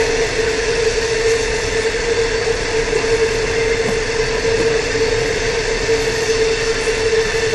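Long iron ore train of hopper wagons rolling steadily past: an even rush of wheels on rail with a steady mid-pitched tone held over it.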